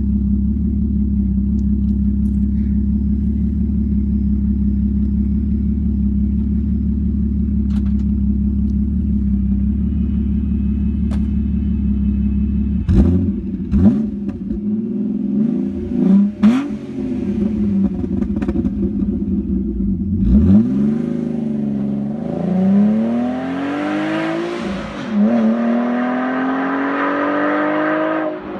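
Alfa Romeo GTV's 3.0 V6 'Busso' through a custom stainless straight-through exhaust: idling steadily, then revved sharply several times about halfway through. It then pulls away flat out, its howl climbing in pitch through the gears and dropping back at each gear change.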